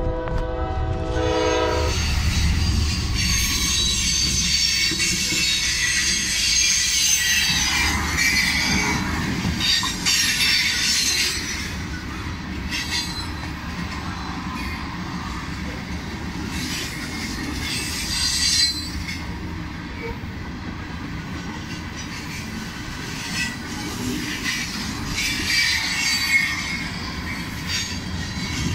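Diesel locomotive horn chord that cuts off about two seconds in, then loaded CSX rock-train hopper cars rolling past in a steady rumble with high wheel squeal, strongest over the first ten seconds and returning near the end. A couple of louder clunks from the passing cars are heard along the way.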